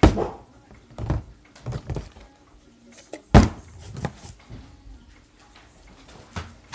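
Small plastic water bottle being flipped and landing on a tabletop: a series of hollow knocks and thuds at uneven intervals, the loudest about three and a half seconds in.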